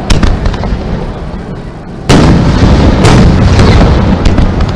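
Aerial fireworks shells bursting overhead: a sharp boom about two seconds in and another about a second later, each followed by a long low rumble, with a few crackles near the start.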